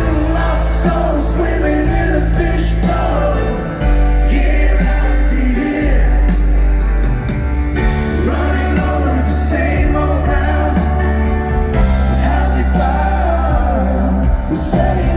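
A song with a singing voice over a strong, steady bass line.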